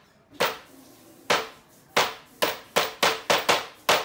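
Hammer striking parts of a flat-pack computer table: about nine sharp blows, each with a short ring, coming faster toward the end.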